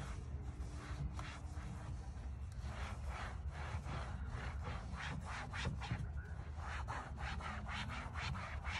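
A cloth rubbing back and forth over a pleated vinyl door panel: quick, regular wiping strokes, several a second, that grow plain about two and a half seconds in. A steady low rumble runs underneath.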